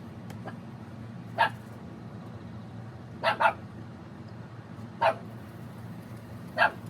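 A dog barking at an even pace, four times, one bark about every second and a half to two, the second one a quick double bark.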